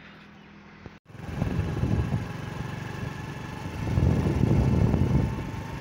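Car driving along a road: steady engine hum and road noise with wind buffeting the microphone. It starts after a quieter first second and is loudest about four to five seconds in.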